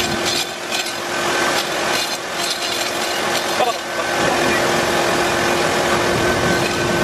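Steady mechanical noise of running machinery with a constant hum, with faint voices.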